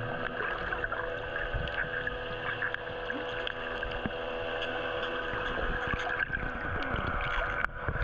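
Muffled sound heard underwater through a camera housing: a steady hum of several even tones with small gurgles and clicks.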